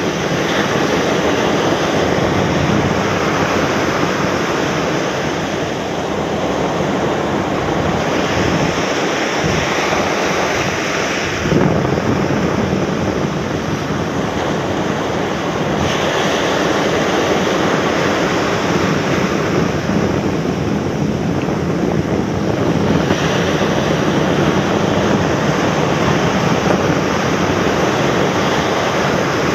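Small surf breaking and washing up a sandy beach, a continuous rushing noise that swells and eases with the waves, mixed with wind buffeting the microphone in a strong onshore wind.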